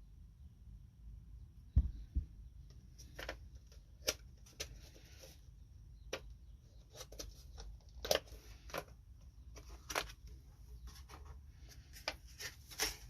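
Scattered light clicks and taps of hands handling laptop parts and small tools, with a low thump about two seconds in and a quicker run of clicks near the end.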